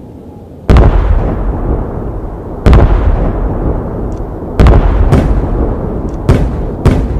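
Aerial firework shells bursting: six sharp bangs at uneven intervals, each trailing off in a low rumble.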